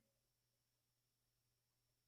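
Near silence: only a faint steady electrical hum.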